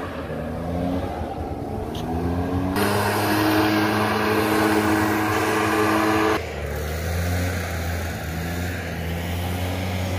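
Backpack leaf blower's small engine running, with a loud rushing blast of air for about four seconds in the middle that starts and stops abruptly. Before and after the blast the engine's hum drifts up and down in pitch.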